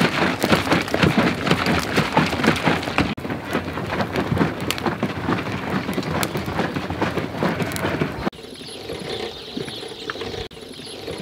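Wood fire crackling in a clay bread oven: a loud, dense crackle of many sharp pops that cuts off about eight seconds in, leaving a quieter background.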